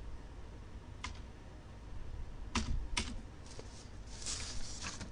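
Scattered keystrokes on a computer keyboard: a single tap, then two sharper clicks, a lighter one and a quick rattle of several keys near the end, over a faint low hum.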